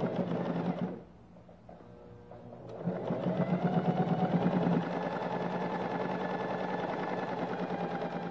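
Singer Heavy Duty sewing machine running and stitching: a short run that stops about a second in, a pause of about two seconds, then a longer run with a fast, even stitching rhythm.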